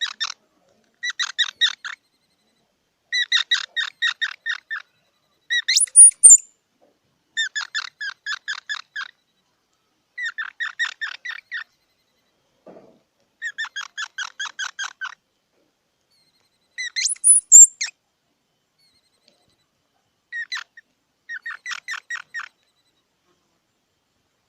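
A squirrel calling in repeated bouts of rapid, high chirps, about seven or eight a second, each bout lasting a second or so with short silences between. Twice, about six and seventeen seconds in, a sharp rising squeal stands out as the loudest sound.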